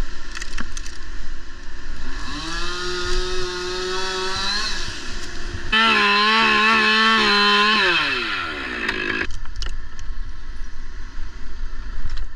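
Chainsaw revved up twice: a first run about two seconds in, then a louder, longer full-throttle run about six seconds in that winds down by about nine seconds.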